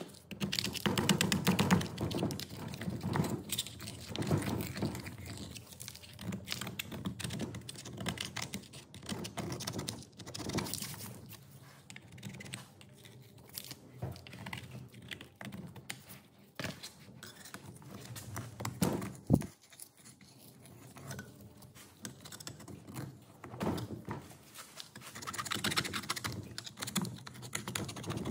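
Screwdriver scraping and picking at a tractor cylinder head, a run of small irregular metallic clicks and scrapes, with one sharper click about 19 seconds in.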